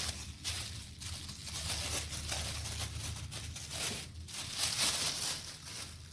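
Packaging rustling and crinkling as a newly unboxed tripod and its remote are handled, in irregular bursts with small crackles.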